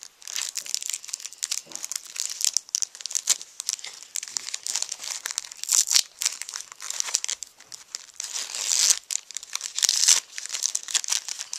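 Shiny foil wrapper of a Pokémon trading-card booster pack crinkling and tearing as it is ripped open by hand, a continuous run of sharp crackles.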